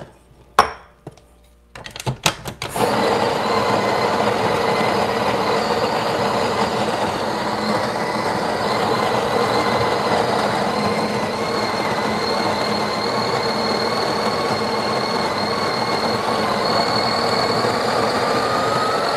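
A few clicks and knocks, then about three seconds in the Breville Barista Express's built-in conical burr grinder starts and runs with a steady whir, grinding beans through a dosing funnel into the portafilter.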